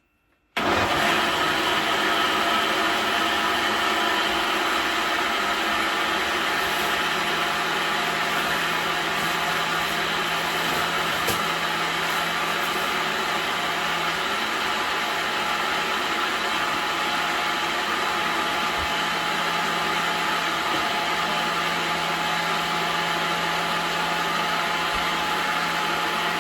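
Electric kitchen blender switched on about half a second in, running steadily at one speed as it purées a wet herb-and-pepper seasoning mix; it is switched off near the end and the motor winds down.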